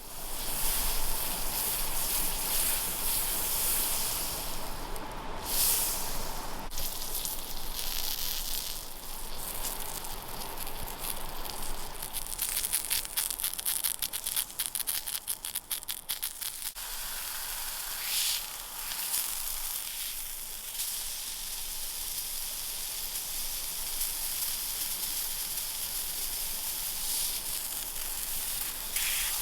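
Food sizzling in a hot pan: a steady hiss, with a run of fast crackling and spitting in the middle.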